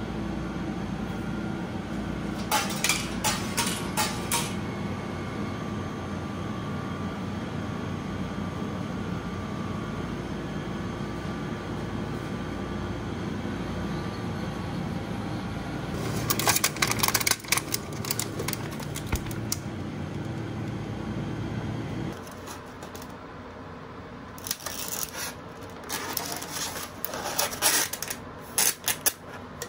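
A food vending machine's steady hum, with short runs of clicks and a longer clatter from the machine as an item is bought. After a drop to a quieter room, a plastic-packed burger is handled in its wrapping, giving bursts of crinkling near the end.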